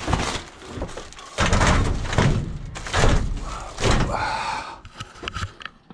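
A plastic-wrapped metal tube frame being handled and shoved into a van full of scrap: the plastic crackles and rustles, with knocks and thuds of metal against the load, busiest from about a second and a half in.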